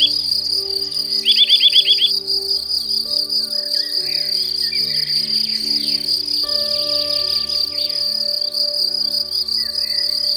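Continuous high-pitched insect trill, like crickets, over soft background music of slowly changing held chords, with a quick run of rapid repeated chirps about a second in.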